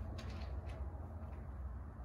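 Steady low room hum with a few faint, light taps in the first second: fingertips tapping on the touchscreen of an Icom IC-705 transceiver.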